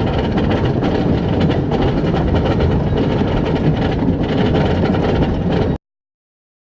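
Amusement-park ride train rolling along its rails: a steady, loud rumble with rattling that cuts off suddenly near the end.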